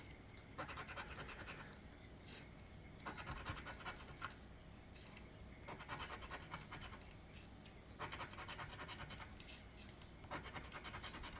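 Scratch-off lottery ticket being scratched off: faint spells of quick scraping strokes, each lasting about a second, with short pauses between them.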